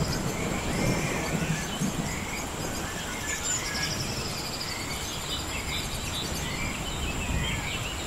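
Rainforest ambience: birds chirping on and off and an insect trilling briefly over a steady hiss of rain, with the tail of a thunder rumble dying away in the first couple of seconds.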